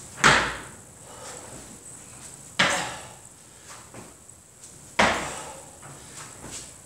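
Three thumps about two and a half seconds apart: feet landing on a gym floor during plyometric power-ups, each an explosive push from a plank that brings the feet in to the hands.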